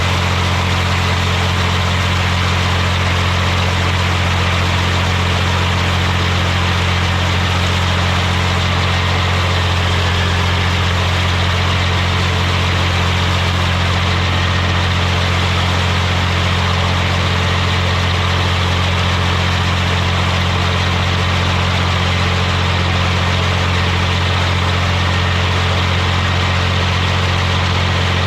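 Tractor engine running at a steady speed with a strong, unchanging low hum.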